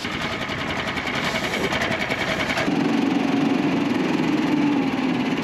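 Snow Dog motorized sled tug's small gasoline engine running with a fast, even pulse as it tows a sled over the ice; about two and a half seconds in the sound changes to a lower, steadier tone.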